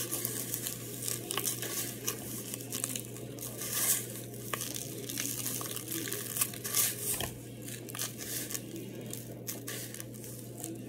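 Gloved hands pressing a breadcrumb coating onto slathered chicken: the thin plastic gloves crinkle and the dry crumbs rustle and crackle in irregular handfuls.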